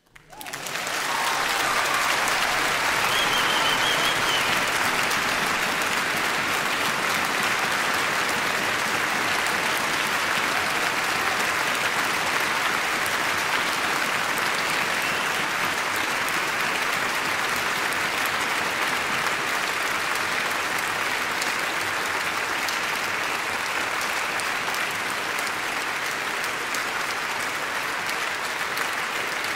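Concert audience applauding at the end of a performance, breaking out suddenly, swelling over the first couple of seconds and then holding steady.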